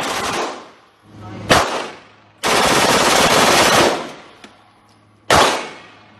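Handgun firing: a shot near the start and another about a second and a half in, then a fully automatic burst lasting about a second and a half, and a single shot near the end.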